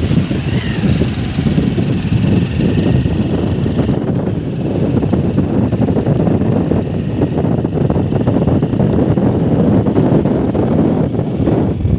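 Motorbike engine running steadily while riding, mixed with rough wind rush on the microphone.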